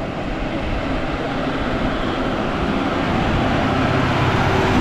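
Tamil Nadu state transport bus's diesel engine running as the bus approaches, growing steadily louder.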